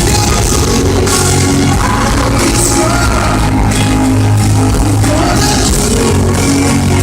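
Live pop concert music: a band with singing, heard in a poor-quality audience recording that is loud throughout.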